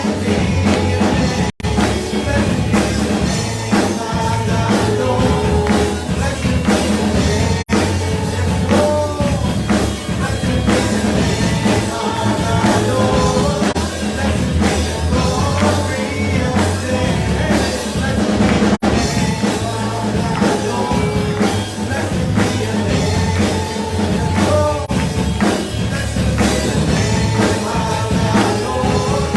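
Live worship band playing: drums, bass and other instruments, with singing.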